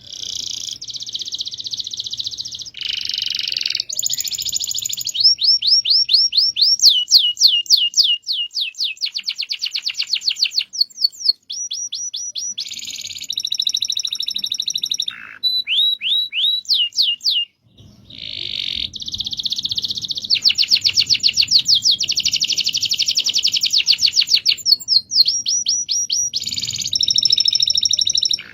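Domestic canary singing a long, continuous song of rapid rolling trills, high-pitched phrases of fast repeated notes that change speed and pitch from phrase to phrase, with a couple of short breaks between phrases.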